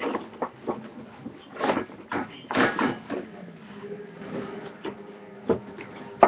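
Irregular knocks, bumps and rustling close to the microphone, with a faint steady hum from about four seconds in.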